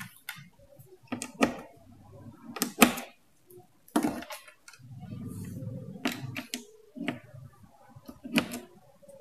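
Sharp clicks and taps of banana-plug patch cords being pushed into the sockets of a transistor trainer board, about eight in irregular succession, with a soft low rustle of handling about halfway through.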